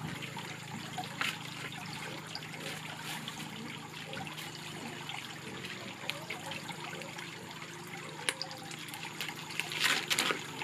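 Thin plastic pinwheel sheets rustling and crinkling as they are folded and handled by hand, with louder crackles near the end, over a steady background hiss like trickling water.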